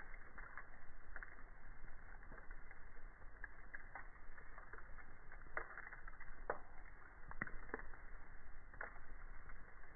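Wood campfire crackling steadily, with irregular sharp pops of burning wood, several louder ones in the middle stretch.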